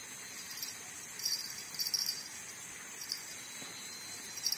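Night insects chirping: a steady high trill, with louder spells of chirping coming in a few times.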